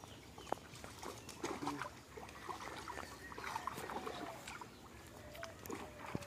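Faint splashing and dripping of pond water as a fishing net is hauled by hand through the shallows, with scattered small splashes.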